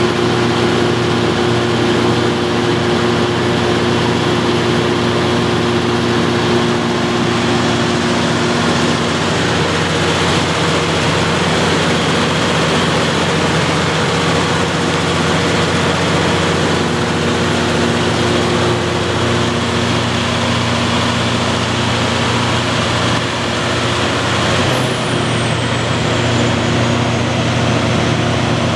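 300 kW Cummins/Onan diesel generator running steadily and loudly, with several steady engine tones and a high whine. About 25 s in, the high whine glides down in pitch.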